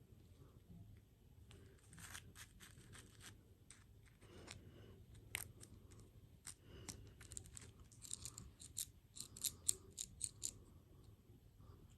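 Faint, scattered soft clicks and crackles, turning into a quick run of sharper ones about eight seconds in that stops around ten and a half seconds.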